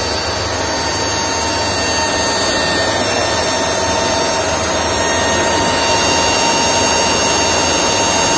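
Steady rush of cooling fans in an FM broadcast transmitter room: the transmitter rack's fans and a wall exhaust fan running continuously, with a few faint steady whines. The transmitter has just been powered back up and is running.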